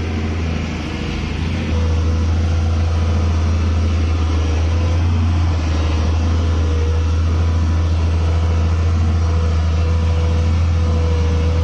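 Volvo EC210 excavator's diesel engine running steadily, stepping up louder about two seconds in and holding there.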